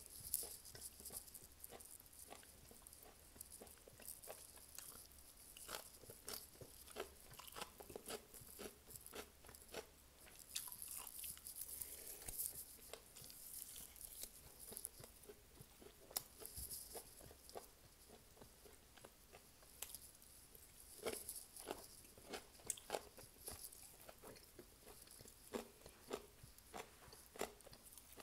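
Quiet close-up eating sounds: crunching bites and chewing of fried chicken wings, with irregular small crackles and clicks.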